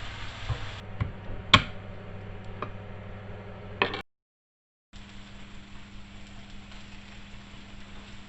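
A few sharp clicks and knocks, kitchen tools against the griddle pan, as crushed garlic goes onto the chicken cooking there, over a steady low hum. The sound cuts to dead silence for about a second midway, then the hum carries on with faint ticks.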